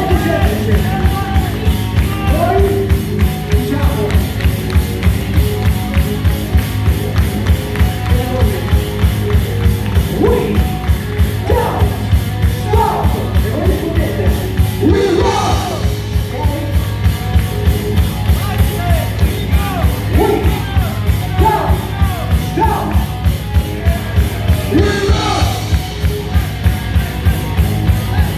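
Heavy metal band playing live and loud: drums keep a steady driving beat under distorted electric guitars and bass, with a singer's voice over the top.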